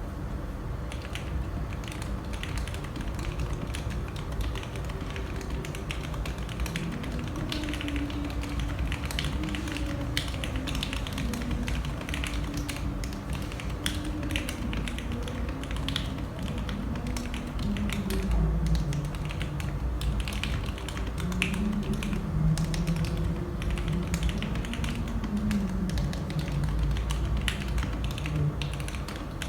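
Typing on a Womier K66 mechanical keyboard with lubed C3 Macho Banana Split linear switches and PBT keycaps: a steady run of keystrokes. From about seven seconds in, a low wavering tone sounds beneath the typing.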